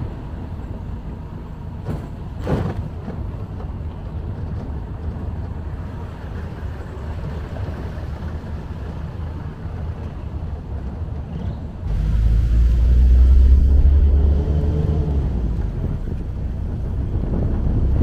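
A vehicle on the move: a steady low engine and road rumble that grows louder about twelve seconds in, where the engine note rises and falls. There is a brief knock early on.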